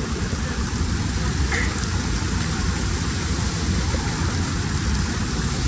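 Waterfall's falling water rushing into its plunge pool, a loud, steady roar with no break.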